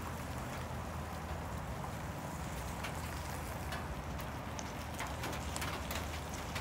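Rain falling, with scattered drops ticking sharply on a nearby surface over a steady low hum.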